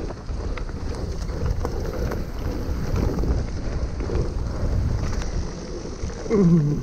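Wind buffeting the microphone and tyres rolling over a rough dirt trail on a mountain-bike descent, with many small rattles from the bike over the bumps. Near the end a short voice call slides down in pitch.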